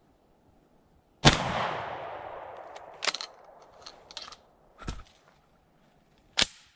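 A single shotgun blast about a second in, its echo dying away through the woods over a couple of seconds. It is followed by several metallic clicks and clacks as the gun is handled, and a second sharp bang near the end.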